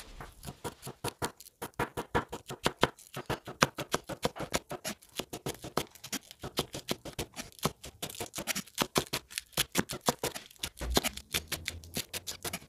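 Kitchen knife thinly slicing spring onions on a wooden cutting board: rapid, even taps of the blade striking the board, several a second.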